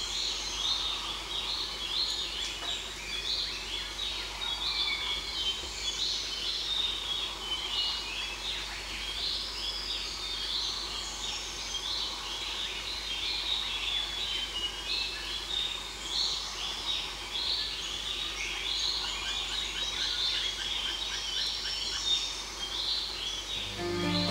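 Many birds calling at once: a dense chorus of short, high chirps and whistles, some falling in pitch, going on without a break.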